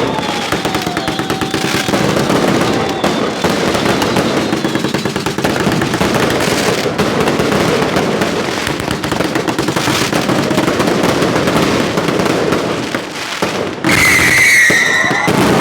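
Fireworks display: dense, continuous crackling and popping of many shells and crackle effects bursting at once. Near the end the crackling breaks off abruptly and a high whistling tone takes over.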